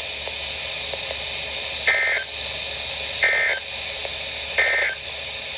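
Three short warbling data bursts over steady radio hiss, about a second and a third apart: the digital SAME end-of-message code of an Emergency Alert System / NOAA Weather Radio broadcast, marking the end of the flash flood warning.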